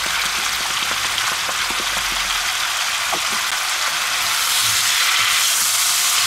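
Sliced zucchini and red bell pepper sizzling in hot oil in a pan, a steady frying hiss. It grows a little louder about two-thirds of the way in as the slices are turned with a wooden spatula.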